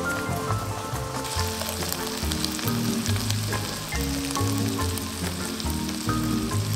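Pieces of chicken breast sizzling as they fry in oil in a pan, the hiss setting in about a second in after a moment of bubbling pasta water. Soft background music with a steady bass line underneath.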